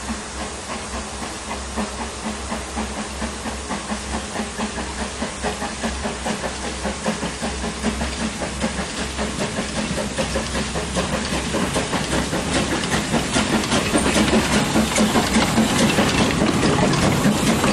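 A two-foot-gauge Henschel "Monta" tank steam locomotive working past with a coach: a quick, even chuff of exhaust over hissing steam around the cylinders, growing steadily louder as it approaches.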